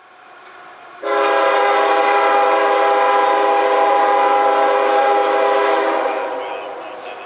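Air horn of the lead GE ES44AH locomotive on an approaching freight train, a chord of several notes sounded in one long blast. It comes in suddenly and loud about a second in, holds steady, and fades away over the last second or so.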